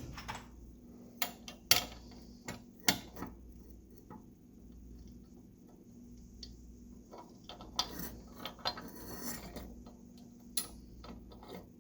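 Scattered sharp metal clicks and knocks at uneven spacing from a wrench working on a fitting of a three-chime steam whistle, with a brief scrape about eight seconds in.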